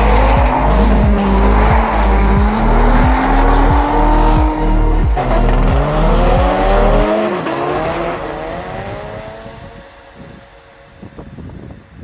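Drift car engines revving up and down with tyre squeal, mixed with music that has a steady beat. The music's bass stops about seven seconds in, and the revving fades away over the last few seconds.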